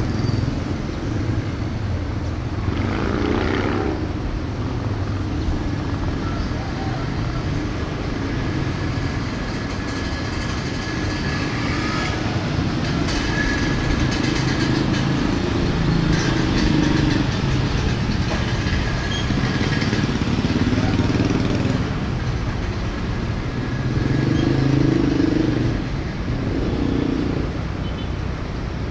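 Diesel locomotive engine running with a steady low drone as it pulls a train slowly toward the crossing, mixed with motorcycle engines at the crossing.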